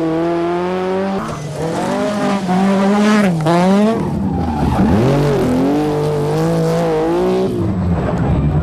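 Group B rally car engine revving hard, its pitch climbing and then dropping several times as it changes up and lifts off, over tyre and road noise.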